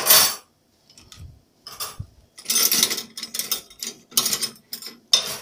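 Metal cutlery clinking and rattling as it is taken out of a dishwasher's cutlery basket, in several short spells of clatter with pauses between.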